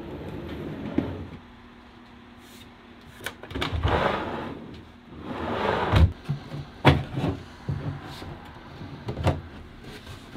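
Wooden drawers sliding on metal ball-bearing drawer slides, with two rushing runs of the slides. A few sharp knocks and clicks follow in the second half as the drawers are pushed home and fitted.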